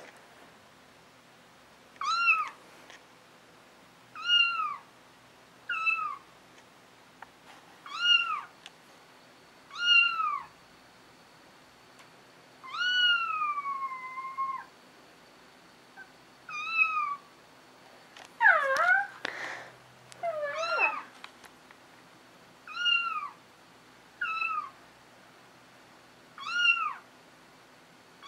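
Kitten mews played from a smartphone's speaker: a high, arching mew repeated about every two seconds, one of them drawn out near the middle. About two-thirds of the way through comes a different, lower cluster of wavering cat calls.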